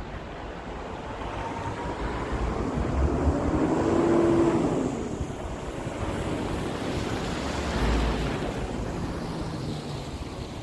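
Scania R420 tractor unit driving across the yard toward and past the listener, its diesel engine running. The sound swells to its loudest about four seconds in and rises again near eight seconds as the truck goes by.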